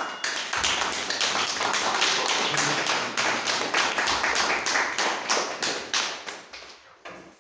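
Small audience clapping, a dense run of individual claps that dies away near the end.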